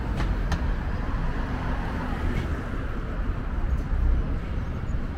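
City street traffic: a steady low rumble of passing cars, with a couple of faint clicks about half a second in.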